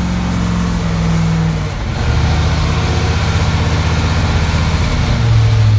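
1977 International Loadstar 1850 dump truck's Caterpillar diesel engine running as the truck drives; the engine note drops about two seconds in, then runs on steadily.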